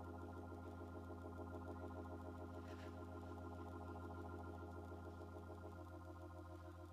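Organ music holding a sustained chord over a deep bass note, the tones wavering slightly. The chord moves to new notes near the end.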